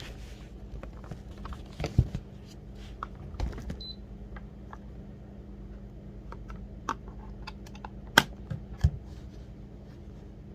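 Scattered light clicks and taps, with one short high electronic beep about four seconds in.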